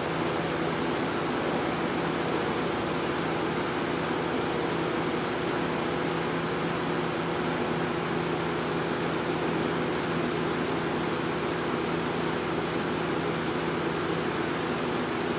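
1995 Lakewood Model 223 20-inch box fan running steadily: an even rush of air with a constant motor hum underneath.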